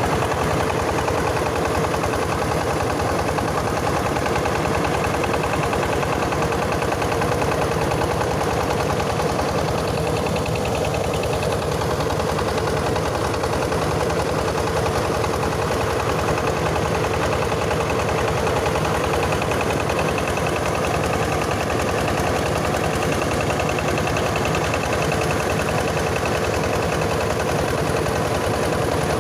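Yanmar diesel engine of a mobile rice huller running steadily at constant speed, driving the milling machine.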